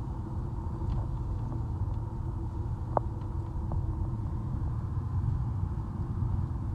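Car driving on a mountain road, heard from inside the cabin: a steady low rumble of road and engine noise, with a few small clicks, the sharpest about three seconds in.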